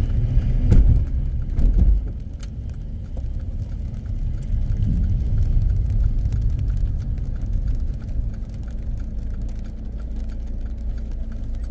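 Car engine and tyre rumble heard from inside the cabin, louder for the first two seconds, then settling to a lower steady rumble as the car slows on a wet road, with faint light ticks over it.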